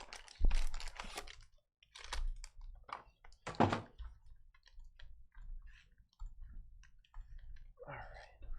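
A cardboard trading-card hobby box and its packs being handled on a table: a thump about half a second in, then scattered knocks, clicks and rustles.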